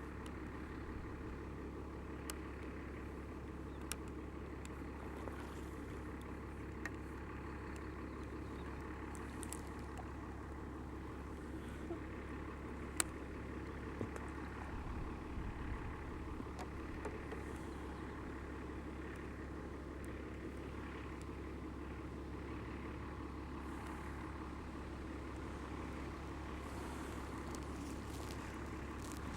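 A steady low mechanical hum, with a few faint sharp clicks.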